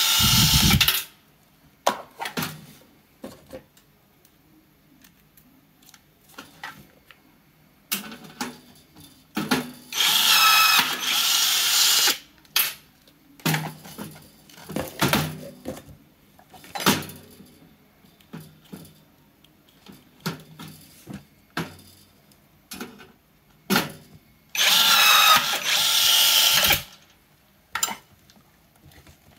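Cordless battery rivet gun running in short motor runs of about two seconds as it sets small blind rivets into thin sheet steel. One run ends about a second in, another comes around ten seconds in and a third near the end, with small clicks and knocks of handling in between.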